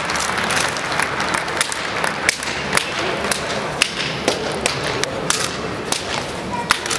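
Scattered hand claps from a sparse audience in a large arena after a sumo bout, sharp separate claps a couple of times a second over a steady crowd murmur.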